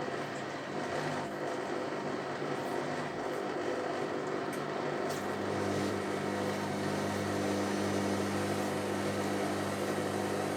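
Zerowatt/Hoover Performa 1000 washing machine running between its drain and its balancing spin, a steady mechanical hum whose low drone grows stronger about six seconds in.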